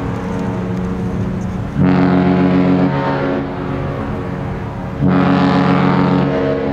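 Oasis of the Seas' deep ship's horn sounding its departure signal. Two loud blasts of about a second and a half each, one about two seconds in and one near the end, with the horn's tone hanging on more quietly between them.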